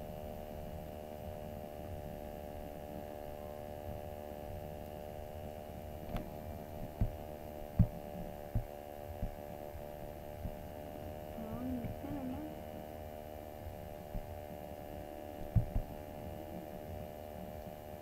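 Steady electrical hum and buzz picked up by a computer microphone. A few dull low thumps come about seven to nine seconds in and again near the end.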